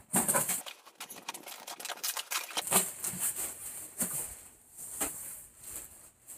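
Cardboard box flaps being pulled open and the plastic packing inside rustling and crinkling under hands, in irregular scratchy crackles.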